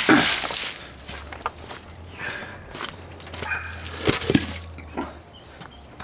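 Scuffing and rustling over dry leaves on concrete with scattered light knocks: a loud rustle right at the start and a cluster of dull thumps a little after four seconds.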